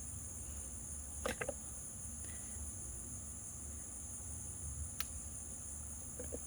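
Steady high-pitched chorus of insects, with a couple of brief clicks about a second in and again near five seconds.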